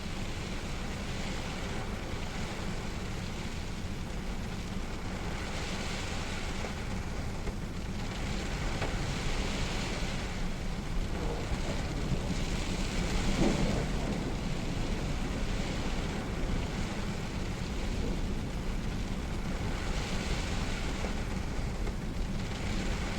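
Steady rainfall with a heavy low rumble underneath, swelling and easing every few seconds, with a brief louder swell a little past halfway.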